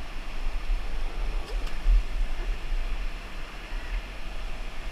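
Rushing whitewater of a river rapid, an even wash of noise, with low buffeting on the helmet camera's microphone.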